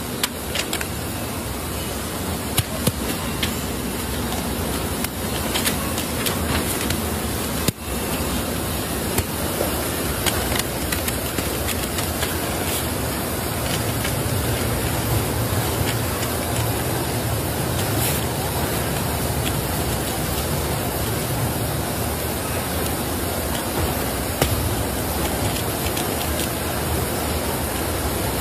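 A steady, loud hiss-like din, with a few short crackles and taps from stiff brown kraft paper being folded and pressed around a bundle of matchboxes.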